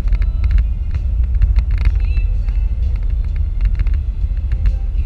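Steady low road rumble of a car driving at freeway speed, heard from inside the cabin, with frequent faint clicks over it.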